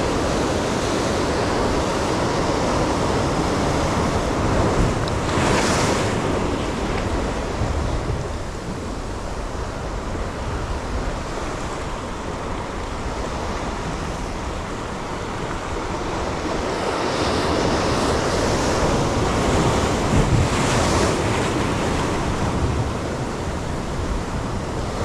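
Sea waves washing and breaking, with wind buffeting the microphone; the surf swells louder twice, about a quarter of the way in and again near the end.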